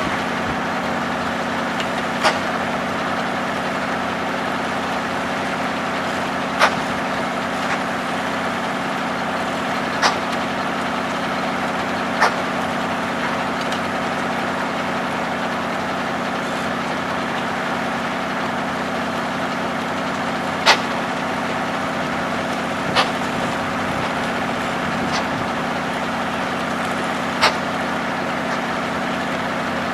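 Engine driving a circular sawmill running steadily, with a sharp knock every few seconds, about seven in all.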